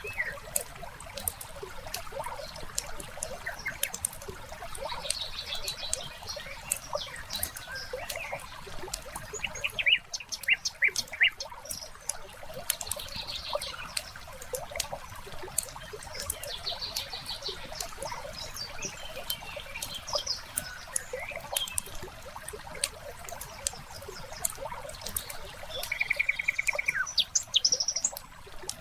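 Wood fire crackling with frequent small pops and snaps, mixed with songbirds chirping and calling, including a quick run of strokes about ten seconds in and a rapid trill near the end.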